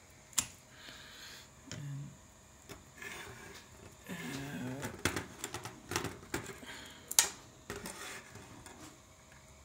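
Irregular plastic clicks and knocks of a ribbon-cable connector being fumbled into the header on a Rumba 3D-printer controller board, thickest in the second half with one sharp loudest click about seven seconds in.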